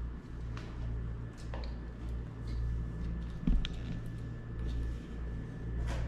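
A kitten's claws scratching and pawing at a rough wooden table leg: faint, short scratches over a steady low hum, with a single thump about three and a half seconds in.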